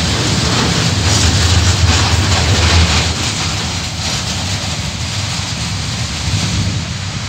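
Coal train's loaded container flat wagons rolling past on the rails, a steady rumble of wheels on track. It is loudest in the first few seconds and gets gradually quieter as the last wagon passes and moves away.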